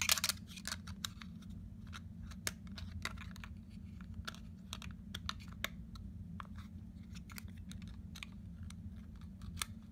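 Irregular small plastic clicks and taps from handling a wireless alert module and working at its battery compartment, with a denser cluster of clicks right at the start, over a steady low hum.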